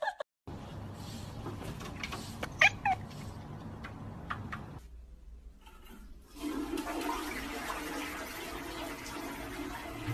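A toilet flushing: water rushing steadily into the bowl from about six seconds in.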